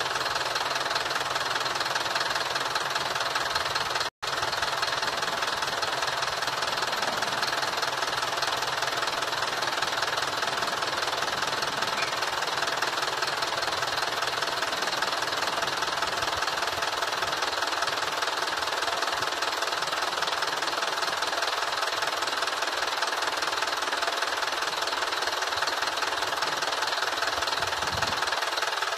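AŽD 97 level-crossing warning signal's electronic bell ringing rapidly and without a break while the crossing is closed, over a low hum from a ČD CityElefant electric double-deck train at the crossing that fades in the second half. The sound drops out for an instant about four seconds in.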